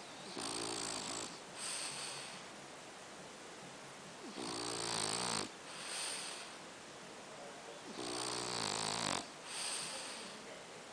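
A sleeping pet snoring: three breaths about four seconds apart, each a longer pitched snore followed by a shorter one.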